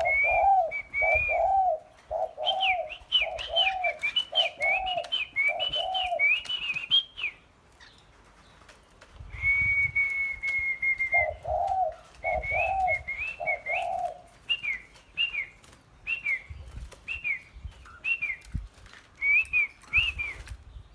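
Caged birds singing: a run of low, repeated arched notes about two a second, over higher whistled phrases, with one long held whistle about ten seconds in.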